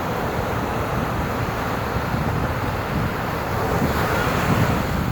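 Ocean waves breaking, a continuous rushing wash with heavy low rumble from wind buffeting the microphone, swelling louder about four seconds in.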